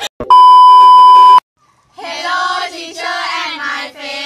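A loud, steady electronic beep at a single pitch, lasting about a second and cutting off suddenly. After a short silence, a group of voices speaks together.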